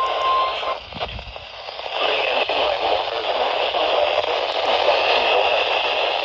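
Weather radio receiver: a steady single high alert tone cuts off just under a second in, then after a short dip the radio plays loud, even static hiss with crackle.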